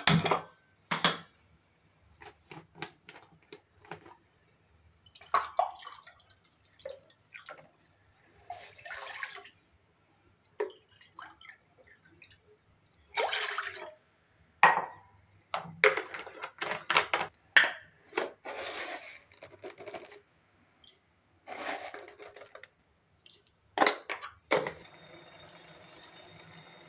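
Kitchen handling of a steel saucepan: sharp clinks and knocks of metal, and water poured from a plastic mug into the pan in several splashing pours. A steady faint hiss starts near the end.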